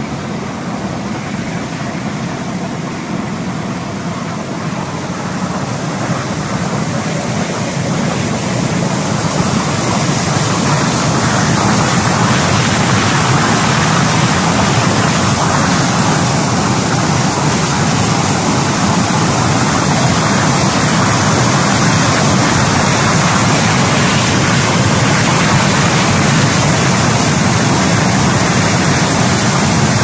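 Bubble-type cut-potato washing machine running: water churning and frothing in the wash tank under the air-bubble generator and spray bars, a steady rushing noise that grows louder about ten seconds in.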